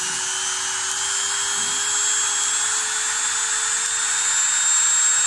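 Dera electric mini grinder (handheld rotary tool) running with no load, its motor whine rising slowly and steadily in pitch as the speed dial is turned up.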